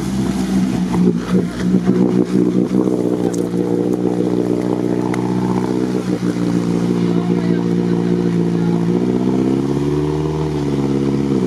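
Off-road 4x4 engine running at steady, fairly high revs under load as a stuck vehicle is hauled out of deep water. Its pitch sags briefly near the end, then picks back up.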